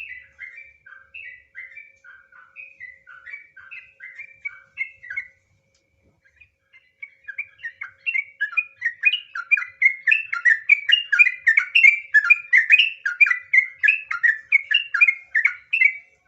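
Yellow-vented bulbul (trucukan) singing rapid runs of short chirping notes. A quieter phrase breaks off about five seconds in, and after a short pause a louder, longer continuous run follows: the 'ropel' style of song.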